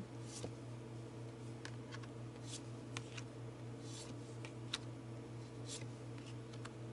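Faint, scattered rustles and soft clicks of tarot cards being handled, over a steady low hum.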